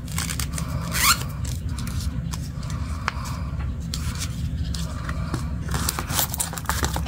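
Paper candy-bar wrappers and wrapped chocolate bars rustling and scraping as they are handled, with scattered crinkles and clicks and a short rasp about a second in. A steady low hum runs underneath.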